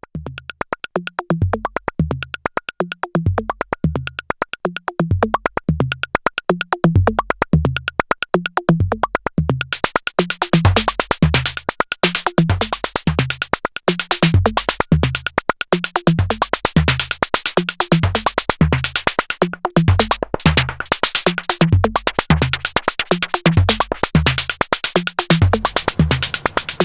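Erica Synths Perkons Voice eurorack percussion module playing a sequenced electronic drum pattern: a fast run of snare hits over short low drum tones that drop in pitch. About ten seconds in the hits turn brighter and noisier as CV modulation changes the snare sound.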